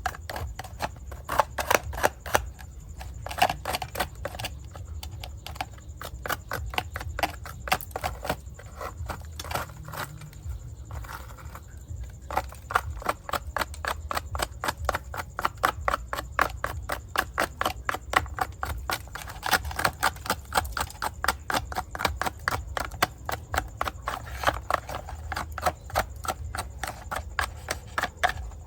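Rapid, uneven clicking and tapping from hand-cleaning work on a mud-caked die-cast model car, several sharp ticks a second over a low steady hum.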